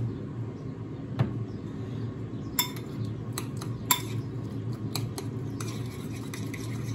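Metal spoon clinking against a white ceramic bowl while wet diced tomatoes are stirred. A dozen or so sharp, irregular clinks, most in the middle stretch, over a steady low hum.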